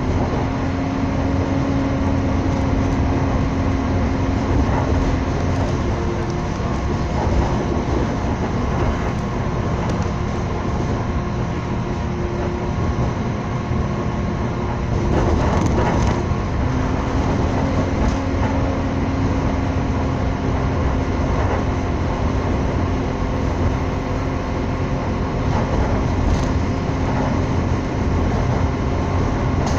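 Passenger train running at speed, heard from inside the carriage: a steady rumble of wheels on rails under a constant droning hum, with a brief clatter about halfway through.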